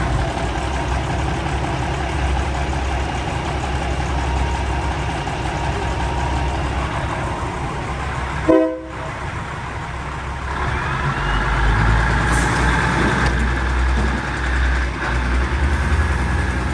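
A train running with a steady low rumble. About halfway through there is one short blast from the train's K3LA air horn, and the rumble grows louder over the last few seconds.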